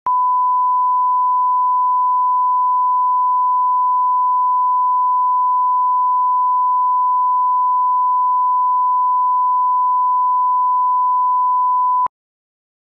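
Steady 1 kHz reference tone of a colour-bars-and-tone test signal, a single pure tone at a constant level for setting audio levels. It cuts off suddenly about twelve seconds in.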